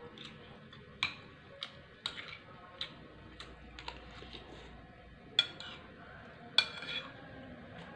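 Metal spoon and fork clinking and scraping against a plate while eating: an irregular series of sharp clicks, with two louder clinks about five and a half and six and a half seconds in.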